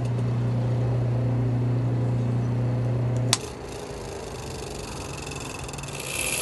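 Old Westinghouse electric motor running with a steady low hum while it spins a repulsion-induction motor's short-circuiting necklace, fitted with a new spring, on an arbor. About three seconds in it is switched off with a click. A quieter, high whirring follows as it coasts, growing louder and then cutting off abruptly near the end.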